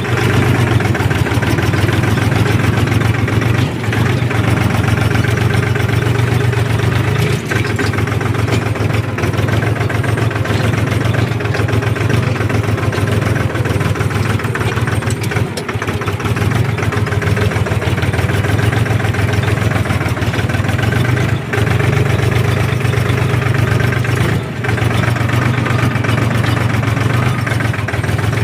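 Farm tractor engine running steadily while plowing a field, a strong low even engine note with brief small dips in loudness every few seconds.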